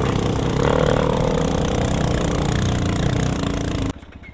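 Motorcycle engine running under way, mixed with heavy wind rush on the microphone. Near the end the sound drops abruptly to a much quieter low engine putter.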